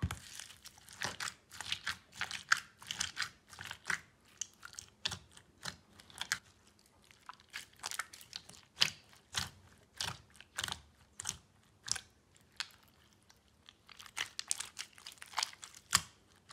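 Clear slime packed with foam beads being squeezed and pressed by hand, the beads giving irregular crunching and crackling, several small crunches a second.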